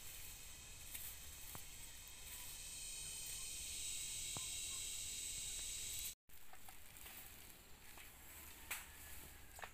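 Steady high-pitched buzzing of forest insects, with a few faint clicks from twigs and leaf litter being handled. The buzzing drops away abruptly about six seconds in, leaving fainter forest sounds.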